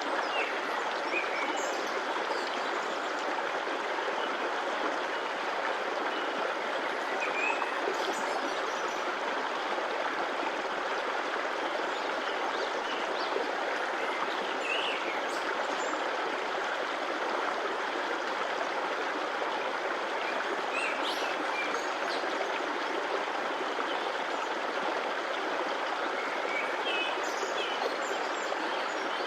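Stream of water running steadily, an even, continuous rushing with no breaks, with a few brief, faint, higher sounds now and then.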